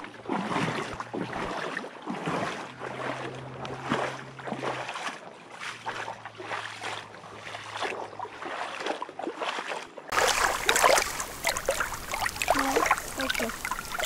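Lake water lapping and sloshing in the shallows over stones, with a faint steady low hum in the first part. About two-thirds of the way in the sound changes abruptly to louder, closer wavelets washing and trickling over pebbles at the waterline.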